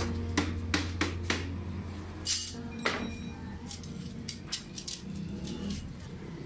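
Short flat steel bar pieces clinking and clanking against each other and the concrete floor as they are gathered up and handled, a scattered series of sharp metal knocks.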